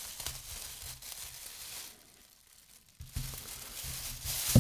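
Rustling, crinkling handling noise, with a lull of about a second around two seconds in.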